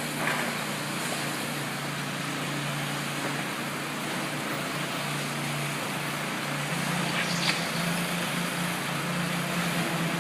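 Construction machinery running with a steady low engine hum over a hiss, broken by two brief clanks, one just after the start and one about seven and a half seconds in.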